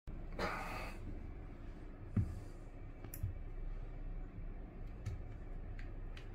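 Hands handling a Samsung Galaxy A20e phone: a short scrape about half a second in, then a few scattered small clicks and taps.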